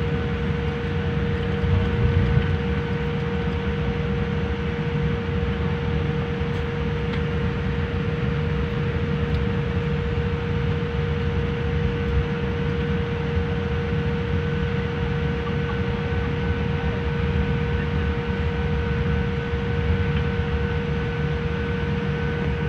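Jet airliner cabin noise while taxiing after landing: a steady low rumble with a constant whine held on one pitch.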